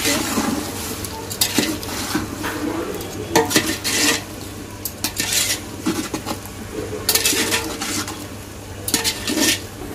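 A spoon stirring and scraping around a large metal pot of vegetables, masala and curd, in irregular strokes, over the hiss of the food frying on the fire.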